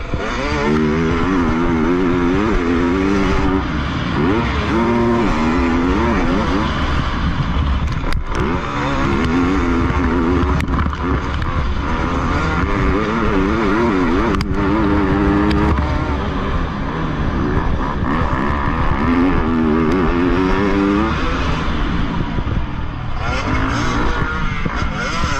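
Motocross dirt bike engine revving hard, its pitch climbing and dropping again every second or two as the rider accelerates, shifts and backs off, heard from a helmet camera.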